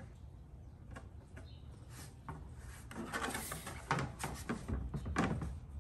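An aftermarket rear diffuser scraping and tapping against the plastic underside of a car's rear bumper as it is held up and slid into position; faint at first, with a run of rubs and a few light knocks in the second half.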